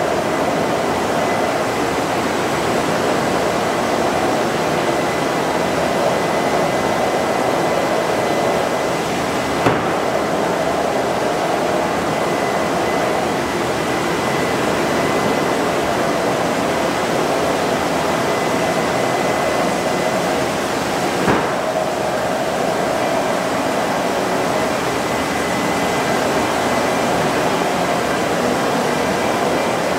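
Steady machinery noise of a robotic board-feeding cell and edge banding machine running, with a faint steady high whine. Two short knocks, one about ten seconds in and one about twenty-one seconds in.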